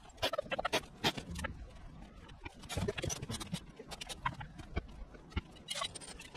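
Sped-up sound of carpentry work: a rapid, irregular jumble of clicks, knocks and scrapes from wood, tools and footsteps, blurred together by the time-lapse.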